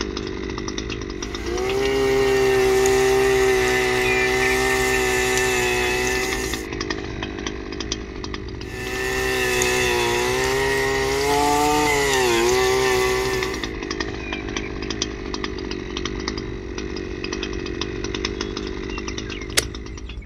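Small motor of a mini DIY auger drill running, whining louder in two spells of about five seconds each over a steady lower hum; the pitch dips briefly near the end of the second spell. A single sharp click near the end.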